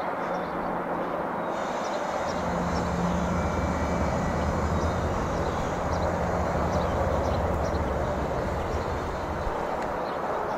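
Steady vehicle running and road noise, heard as if from inside a slowly moving car. A low engine hum grows stronger a couple of seconds in and eases off near the end.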